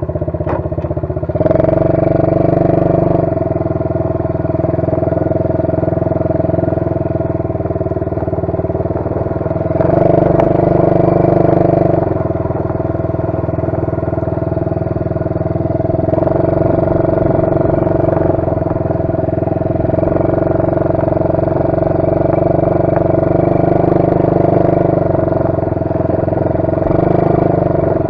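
A 125cc ATV's single-cylinder four-stroke engine running while the quad is ridden, the throttle opened and eased off several times so the engine note rises and falls.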